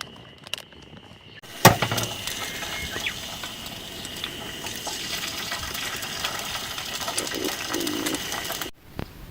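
Food sizzling on a hot grill: a dense, steady crackle that starts with a sharp knock about a second and a half in and stops abruptly near the end.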